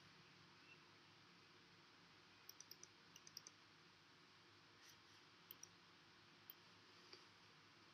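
Faint computer mouse clicks over near silence: a quick run of about seven clicks, then a few single clicks.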